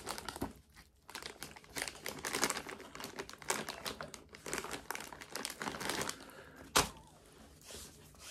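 A plastic food pouch crinkling and rustling as it is handled, in quick irregular crackles, then one sharp click about seven seconds in.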